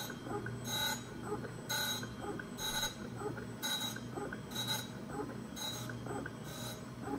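Parker Majestic surface grinder grinding the face of a part on its magnetic chuck. A steady motor hum runs under a brief hiss that repeats about once a second as the table carries the part back and forth under the wheel.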